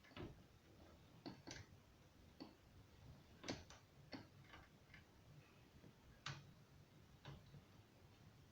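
Faint, irregular clicks and light taps, about a dozen scattered through, the loudest about three and a half seconds in.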